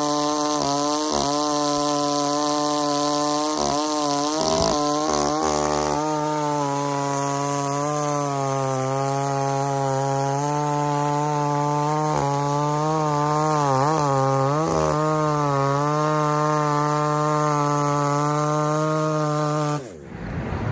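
Husqvarna 372 two-stroke chainsaw, fitted with a modified exhaust, held at full throttle while cutting through a large log. The engine note stays high and steady, with brief dips in pitch as the chain loads up. It cuts off suddenly near the end.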